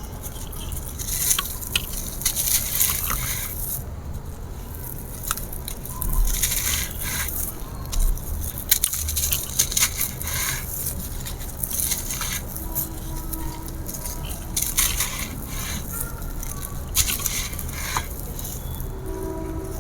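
Dry grey concrete slab crumbling and crushing, in irregular gritty, crackly bursts.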